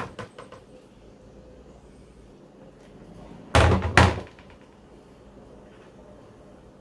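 Two loud, short thuds about half a second apart, a little past halfway, with a few faint clicks near the start.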